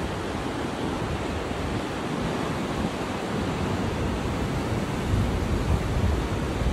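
Wind buffeting the microphone over a steady rush of ocean surf, the gusts growing stronger near the end.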